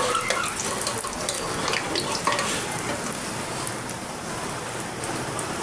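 Food sizzling as it fries in a pan: a steady hiss with scattered light clicks of a utensil stirring.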